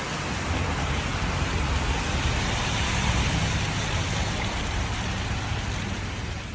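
Hail and rain pelting down steadily in a heavy hailstorm: a dense, even hiss with a low rumble underneath.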